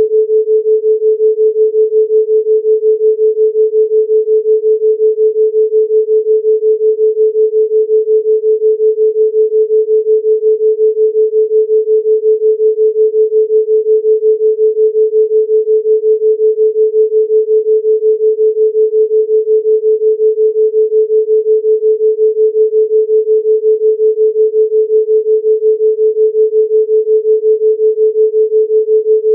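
Steady 432 Hz pure sine tone, a single unwavering pitch that throbs evenly several times a second: a theta-rate binaural beat.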